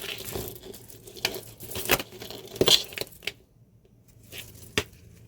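Loose costume jewelry clicking and rattling, with rustling, as a tangled necklace is tugged free from a pile. The handling is busiest in the first three seconds, then quiet with one more sharp click near the end.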